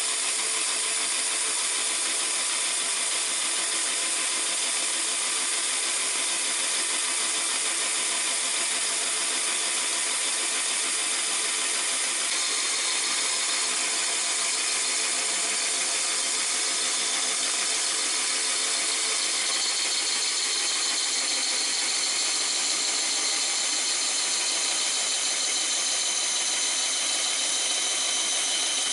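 Twenty-year-old Craftsman bandsaw running steadily, its blade cutting lengthwise through a tea olive log to make knife-handle scales. The sound is a steady, even hiss and whir.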